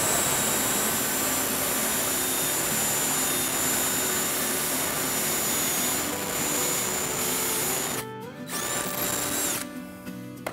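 Cordless drill with a masonry bit boring through the back of a metal electrical box into the concrete of an insulated concrete form wall. It runs steadily for about eight seconds, stops briefly, spins up again for a short second burst and stops near the end.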